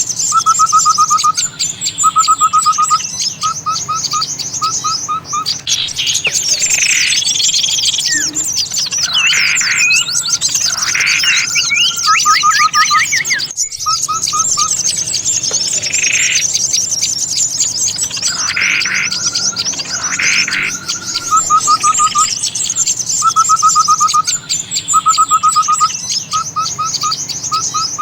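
Bird-lure recording for small birds: a dense chorus of high twittering chirps, with short bursts of rapid trilled notes lower down and louder swooping calls between them. There is a brief break about halfway, after which the same sequence repeats as a loop.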